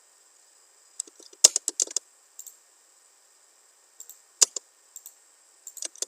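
Computer keyboard keystrokes, typing in short bursts: a quick run of clicks about a second in, a few more around four seconds, and another short run near the end.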